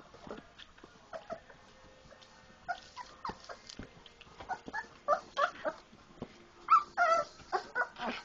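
Four-week-old Labrador puppies giving short, high whimpers and yips, the calls coming faster and louder in the second half, over scattered small clicks and scuffles.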